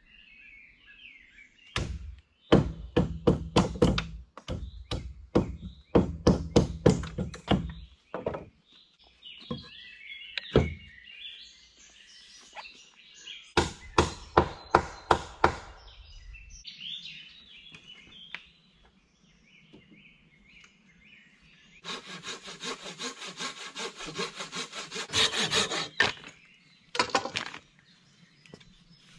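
Hand-tool woodworking: two runs of sharp blows on wood, several a second, then a few seconds of rapid hand-saw strokes near the end, followed by two more knocks. Birds chirp faintly in the pauses.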